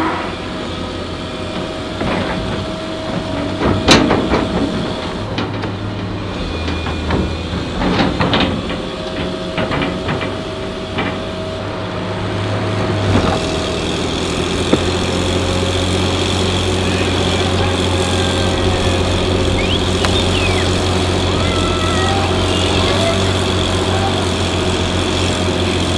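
Large tracked excavator's diesel engine running under hydraulic load, with sharp clanks about four and eight seconds in. About halfway through the engine settles into a louder, steady pull with a thin high whine over it.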